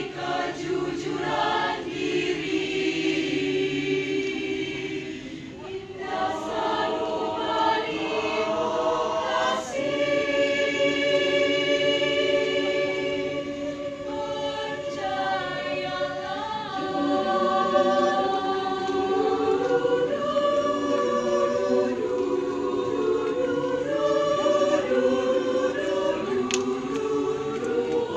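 Mixed choir of women's and men's voices singing in harmony, holding long chords that shift from phrase to phrase, with a short lull about five seconds in.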